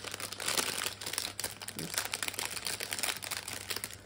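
Clear plastic bag of Lego bricks crinkling and rustling as it is handled, with many small crackles throughout.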